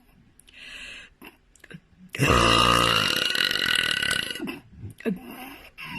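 A woman burping: one loud, long belch lasting about two seconds, starting a little after two seconds in, with a few short, faint sounds before and after it.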